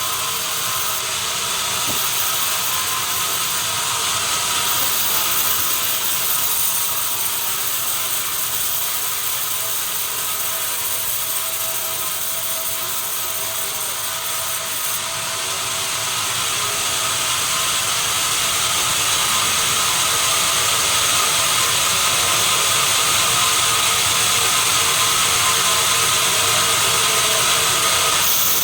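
Sawmill machinery running steadily, a dense mechanical whir with several constant high whines, growing a little louder in the second half.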